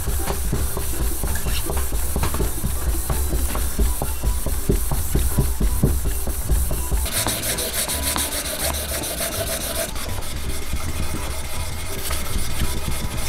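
Hand sander fitted with fine 1500-grit waterproof sandpaper, rubbed back and forth over a wooden cutting board in quick strokes: a dense scratchy rasp. It gets brighter about seven seconds in.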